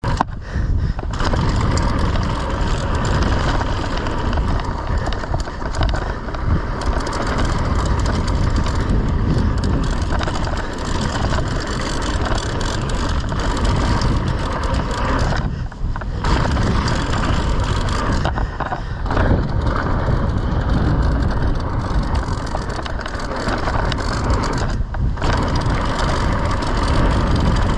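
Mountain bike riding fast down a dirt trail: heavy wind buffeting the bike-mounted camera's microphone over the rolling of knobby tyres on packed dirt.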